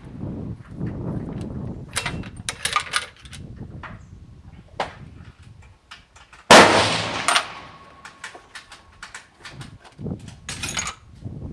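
A single rifle shot from a Tikka T3 Varmint in .308 Winchester about six and a half seconds in, a loud crack that rings out and fades over a second or so. Short metallic clicks and clatter come before and after it.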